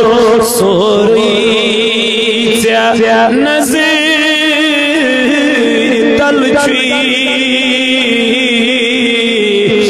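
A man chanting a devotional naat through a microphone and PA system, drawing out long melismatic lines with a wavering pitch over a steady low drone.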